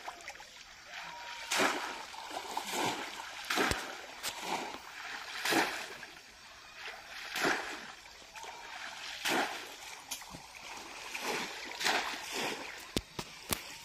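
Pond water splashing as a person wading in it scoops and throws water with a bowl, in repeated splashes about every two seconds.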